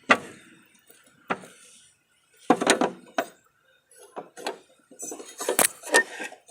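Metal tools and mower-deck spindle parts clinking and knocking in a series of sharp, irregular hits, some in quick clusters.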